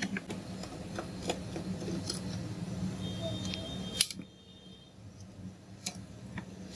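Small clicks and taps of screws being unscrewed and handled in the plastic housing of a Bluetooth tower speaker: a few scattered clicks, with a sharper one about four seconds in. A low steady hum runs underneath and cuts off at that sharper click.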